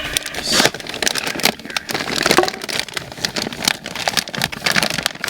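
Plastic dog-treat packaging crinkling and rustling in the hands as it is rummaged through and opened: a dense, irregular run of crackles and rattles.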